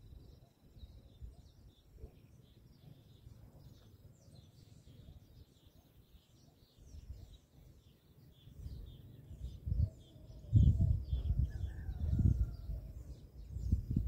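Many small birds chirping in the background. From about two-thirds of the way in, gusts of wind rumble on the microphone and become the loudest sound.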